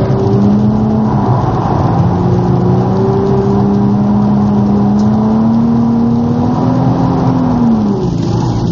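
Nissan 350Z's 3.5-litre V6, heard from inside the cabin, pulling through a corner under load. Its note rises slowly and steadily, then drops sharply near the end as the revs fall.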